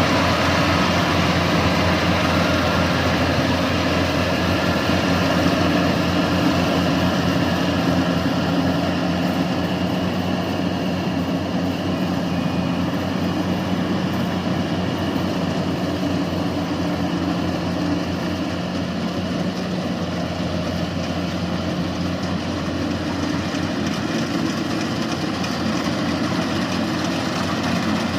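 Yanmar rice combine harvester running steadily, its diesel engine and machinery giving a continuous even drone.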